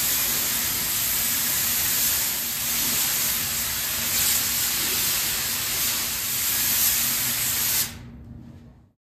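3M compressed-air paint spray gun hissing steadily as it lays on a heavy final coat of satin black paint; the hiss cuts off suddenly near the end.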